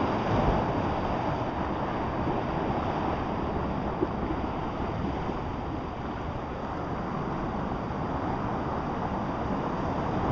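Sea surf surging and washing through a narrow rocky blowhole channel, a steady rush of churning water.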